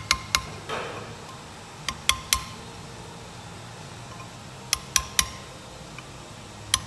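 Hammer tapping a small flat round chisel to drive a new oil seal evenly into a Land Rover Discovery 1 wheel hub. Each tap is a sharp metallic clink with a short ring, coming in short runs of two or three with pauses between.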